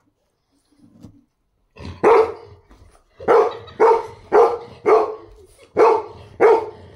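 French bulldog barking excitedly at a balloon being waved at it: one bark about two seconds in, then a quick run of six more, about two a second.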